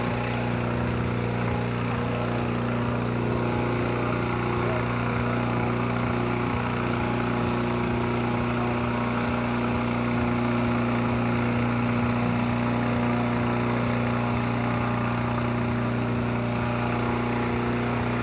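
A small engine running steadily with a constant low hum.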